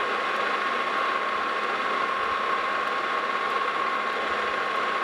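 A 16-inch Monarch metal lathe running steadily at low speed with a steady whine, while a hand-fed tool trims brass braze off a spinning part.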